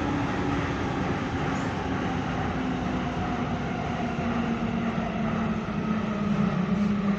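Copenhagen Metro train running through a tunnel, heard from inside the carriage: a steady rumble of running noise with a low hum that slowly falls in pitch and grows louder near the end.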